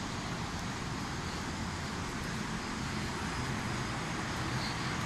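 Steady outdoor city background noise: a low rumble with an even hiss over it, holding level throughout.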